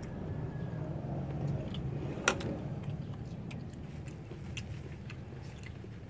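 Eating at a table: a few light clicks of a spoon on a plate and a plastic cup being picked up, with one sharper click about two seconds in, over a low steady rumble.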